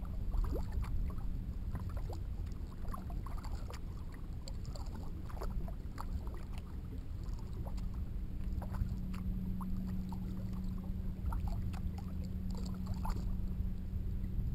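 A kayak moving across a lake under paddle: small irregular splashes and drips of water against the hull, over a continuous low rumble. A faint steady low hum runs underneath.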